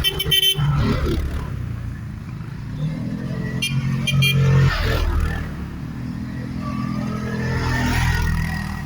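ATV engine running, its revs rising and falling, climbing to a peak about four and a half seconds in and again near the end, with a few short clicks along the way.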